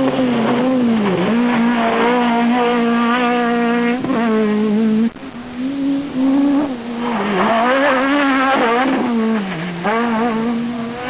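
Renault Clio Maxi Kit Car rally car's four-cylinder engine running hard at high revs. Its pitch dips briefly several times and climbs straight back.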